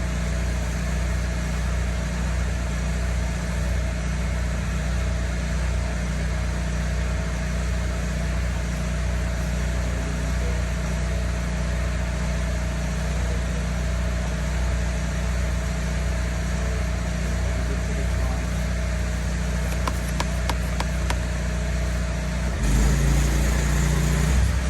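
Pressure washer's engine running steadily, with the sound growing louder and fuller near the end.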